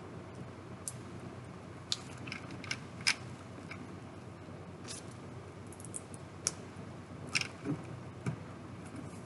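Plastic LEGO bricks clicking as they are handled and pressed onto a model boat: about a dozen short, sharp clicks at uneven intervals over a steady background hiss.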